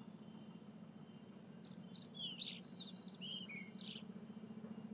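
Faint birdsong: a quick run of short high chirps and twitters through the middle, over a soft steady low hum.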